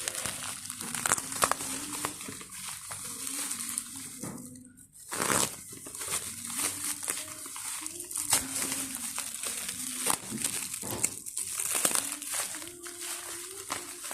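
Plastic packaging crinkling and rustling as a product is unboxed, with irregular clicks and handling knocks; a loud rustle comes about five seconds in, just after a brief lull.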